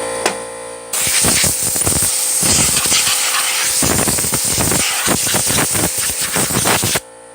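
Loud spraying hiss of air or cleaner blasted over a chainsaw to clear out dirt and dust. It starts suddenly about a second in, wavers as the nozzle moves, and cuts off suddenly near the end. A single click comes just before it starts.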